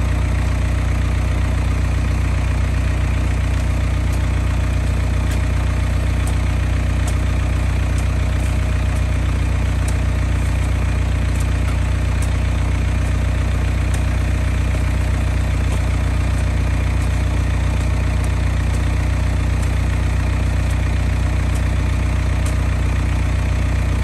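Tractor engine idling steadily close by, a constant low drone with an even pulse.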